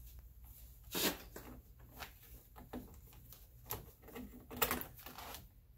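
A heavy-duty nylon zip tie being cinched in short, hard pulls around a gas strut to compress it: a scattered run of rasping clicks, the loudest about a second in and a cluster near the end.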